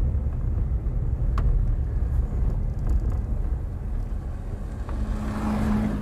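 Car driving on a sandy dirt road: a steady low rumble of engine and tyres, with a single short tick about a second and a half in. Near the end a hiss swells and a steady hum comes in.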